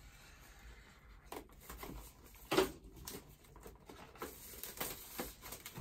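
Plastic wrapping on a boxed book being picked at and torn open by hand: scattered crinkles and rustles, with a sharper crackle about two and a half seconds in.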